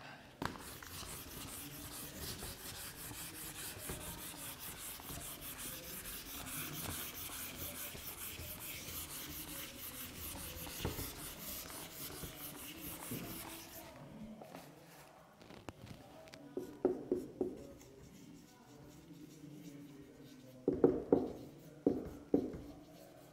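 Whiteboard duster wiping the board clean in fast back-and-forth strokes for about fourteen seconds, then a marker writing on the whiteboard in short separate strokes.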